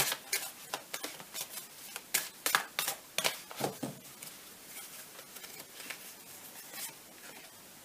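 A deck of oracle cards being shuffled by hand: a run of quick papery flicks and taps, densest in the first half and thinning out toward the end.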